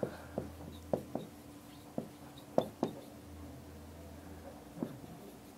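Marker writing on a whiteboard: a scattering of short, sharp taps and ticks as the strokes are drawn, over a faint steady low hum.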